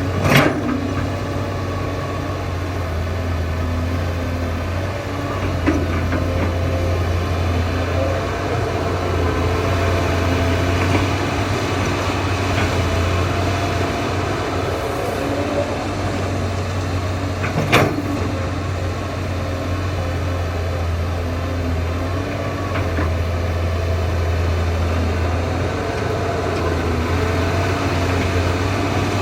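Excavator's diesel engine running steadily with a deep, even drone. Two sharp knocks cut through it, one just after the start and one about 18 seconds in.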